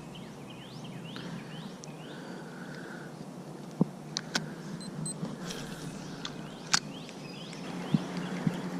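Outdoor background noise with a bird's quick rising chirps in the first two seconds. Several sharp clicks follow a few seconds apart, about four seconds in and later.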